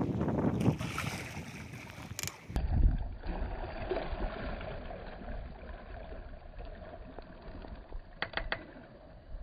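Water rushing along a sailboat's hull as it moves under sail, with wind on the microphone. A few short, sharp sounds near the end.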